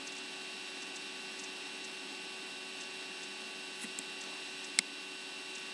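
Steady electrical hum and hiss on the recording line, with one short sharp click near the end.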